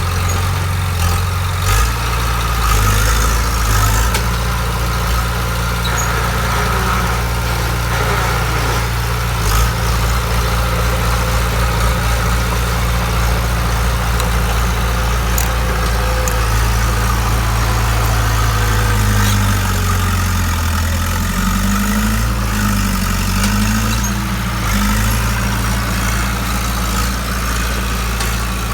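Bulldozer's diesel engine running at idle, a steady low drone. About two-thirds of the way through, the engine note wavers up and down for a few seconds before settling again.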